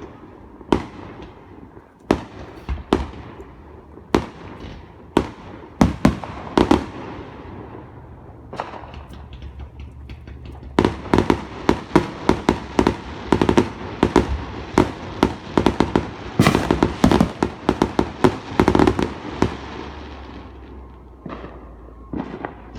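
Fireworks exploding: single sharp bangs about once a second, then a dense barrage of rapid bangs through the middle that thins out near the end.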